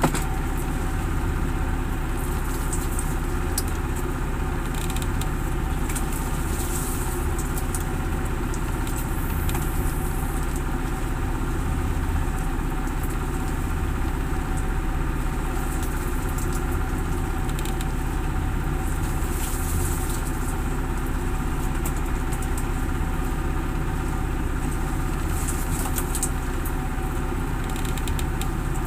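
Fishing boat's inboard engine running steadily at an even idle, with an irregular faint crackle in the highs over it.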